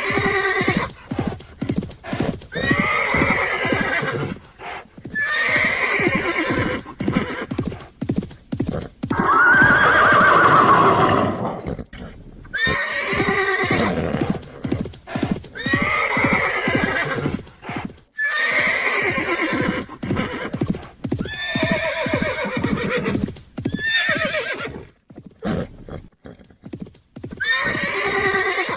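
Horses whinnying over and over, about ten calls with falling pitch, over a quick clatter of hooves. The longest, loudest whinny comes about ten seconds in.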